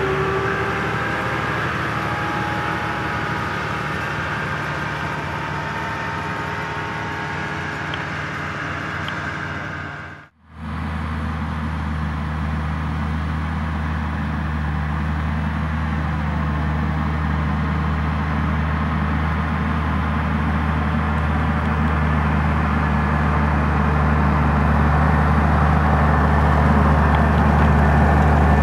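Fendt tractors' diesel engines working under load while pulling precision maize seed drills across a field. First one tractor runs with a faint whine that sinks slightly in pitch. After an abrupt cut about ten seconds in, a second tractor's engine gives a steady low drone that slowly grows louder as it comes closer.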